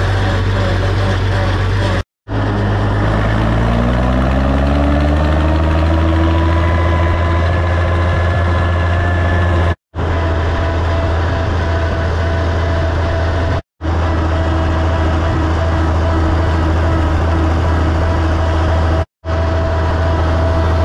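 Farmall 806's six-cylinder diesel engine running under way on the road, with a deep steady drone. It picks up speed and rises in pitch a few seconds in, then holds a steady road speed.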